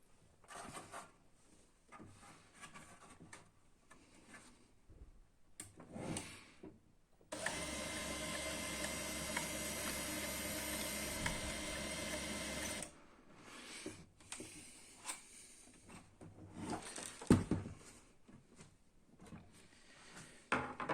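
Canon MF4410 laser printer's replacement 24 V DC main motor (RM1-7624) driving the printer's gear train, running steadily for about five seconds and starting and stopping abruptly: the new motor turns normally. Light clicks and handling knocks come before and after it.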